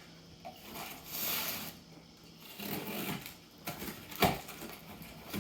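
Cardboard shipping box being opened and handled: scraping and rustling of the cardboard, scattered clicks, and one sharp knock a little past four seconds in.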